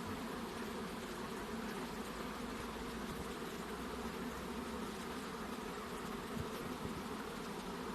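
Honey bees buzzing, a steady hum of many bees at once.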